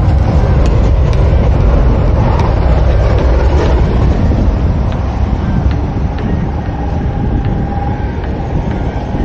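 Onboard sound of a fast electric RC car running over a rough painted court: a loud, steady rumble with scattered clicks. A faint steady motor whine comes in during the second half.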